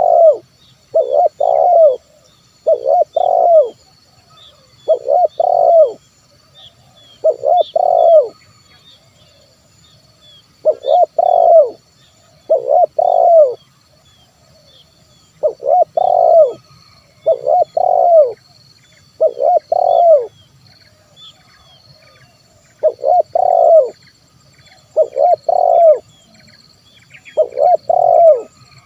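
Spotted dove (tekukur) cooing: short phrases of about a second each, repeated every two to three seconds with a few longer pauses. Faint high chirps of small birds and a steady high hiss run underneath.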